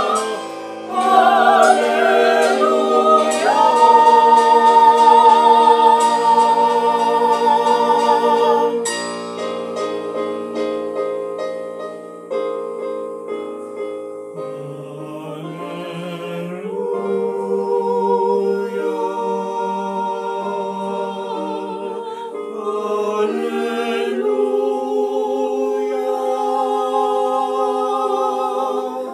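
Mixed vocal quartet of two men and two women singing a worship song in harmony, holding long chords with vibrato. It is loud for the first nine seconds or so, then softer and swelling again.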